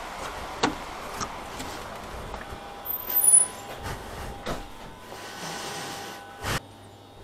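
A shop's glass-panelled front door being opened and let go, with clicks and knocks from the handle and frame, the loudest about three seconds in. Footsteps follow, and the outdoor background dies away once inside, with a dull knock near the end.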